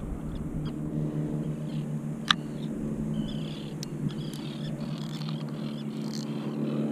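A motorboat engine running steadily at a distance, with short bird calls from about three seconds in and a single sharp click a little over two seconds in.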